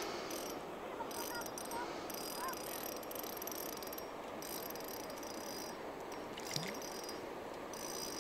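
Fishing reel being wound in spurts, its mechanism giving a fine clicking whir that starts and stops several times.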